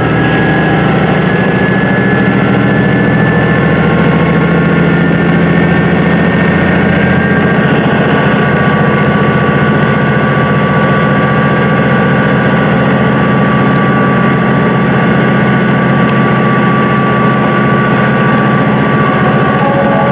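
Cabin noise of a JR West HOT7000-series diesel railcar under way: the diesel engines drone steadily, with steady higher whining tones over the rumble of the running train.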